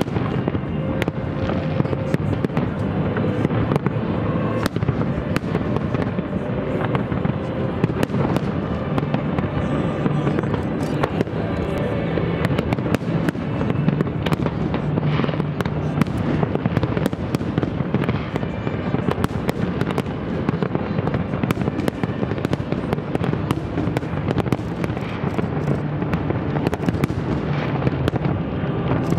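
Aerial fireworks bursting in quick succession, a dense run of bangs and crackles with no letup.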